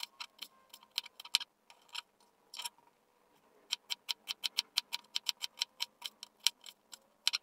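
Chef's knife chopping a white onion on a plastic cutting board: quick runs of sharp taps, about five a second, as the blade strikes the board, with two short pauses between runs.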